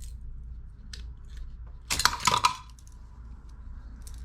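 A brief clatter of small hard objects knocking together about two seconds in, over a low steady hum.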